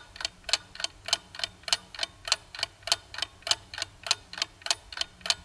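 Clock-ticking sound effect: even, sharp ticks about three a second, alternating louder and softer like a tick-tock.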